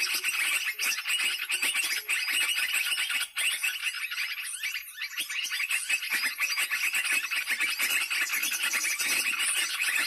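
Bird-trapping lure call playing from a speaker: a dense, rapid, unbroken stream of high-pitched small-bird chirping.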